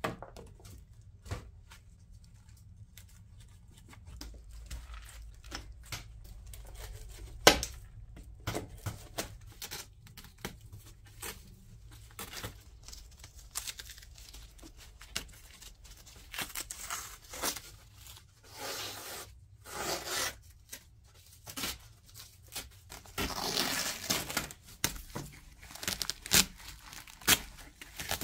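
Old fabric upholstery and edge trim being torn and pulled away from a wicker pram body, with many sharp clicks and snaps as the tacked edge is pried at. Longer ripping stretches come in the second half.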